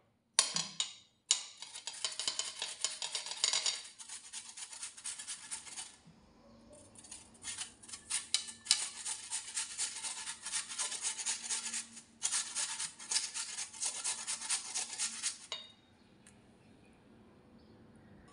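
Peeled raw potato being grated on a stainless-steel hand grater: quick, repeated rasping strokes, stopping briefly a few times and ending a few seconds before the end.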